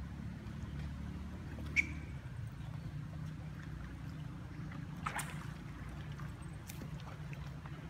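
Macaques splashing in shallow pond water, with a louder splash about five seconds in, over a steady low rumble. A short high chirp sounds about two seconds in.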